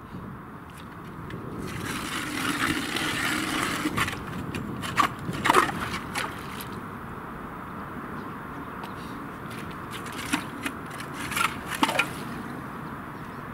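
Hand ice auger boring a hole through river ice: a grinding scrape of the blades cutting builds about two seconds in, followed by sharp scrapes and knocks around the middle and again near the end as the auger is worked and lifted.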